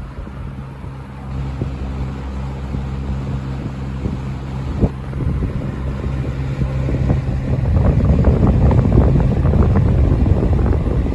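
Restored 1970s Coast-Air box fan running, its electric motor humming steadily under the rush of air. A single knock comes about five seconds in, and from about halfway through, the fan's airflow buffets the microphone with growing strength.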